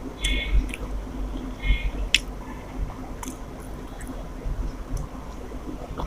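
Close-up eating sounds: wet squishing and smacking of rice and curry being mixed and chewed, with a few sharp clicks scattered through.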